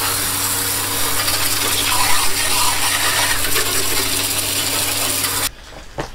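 Garden hose spray gun jetting water onto a push cylinder (reel) mower, a loud steady hiss and spatter of water on the reel and frame, washing sand off its blades, with a low steady hum underneath. It cuts off abruptly about five and a half seconds in.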